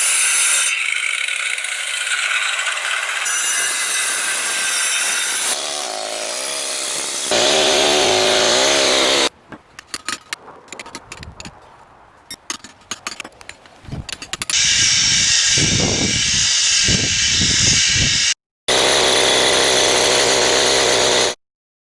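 Stone-carving tools (air-powered carbide chisels and diamond grinding and polishing tools) heard in a run of short cuts. Steady loud grinding and air-tool noise is broken in the middle by a quieter stretch of irregular sharp taps, and the sound stops abruptly near the end.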